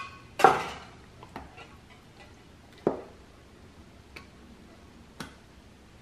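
Light taps and clicks of kitchen utensils against a glass baking dish holding egg mixture: one sharper knock about half a second in, then fainter single clicks about once a second.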